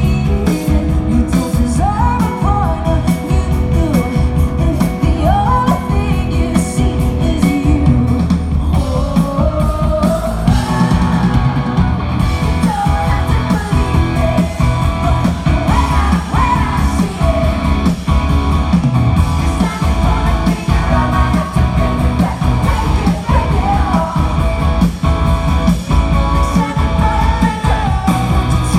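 Live rock band playing loud through a concert PA: a female lead singer over electric guitars, bass and drums, heard from out in the audience.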